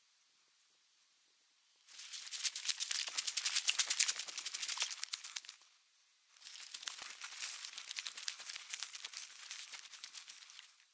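Dry, crisp rustling and crackling in two long stretches, starting about two seconds in with a short pause near the middle. The first stretch is the louder.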